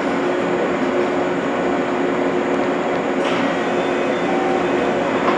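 JR West 227 series 'Red Wing' electric train standing at the platform with its doors open, its onboard equipment humming steadily with a few low tones. A brief sharp sound comes about three seconds in.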